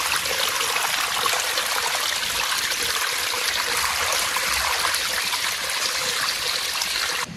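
Rainwater runoff running fast down a narrow muddy gully, a steady rushing trickle of water fed by days of continuous rain. It cuts off abruptly near the end.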